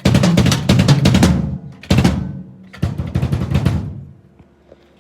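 Drum kit being played in fast fills of snare, kick and drum hits, in three bursts: a long run, a single hit about two seconds in, then another run that stops and rings away about four seconds in.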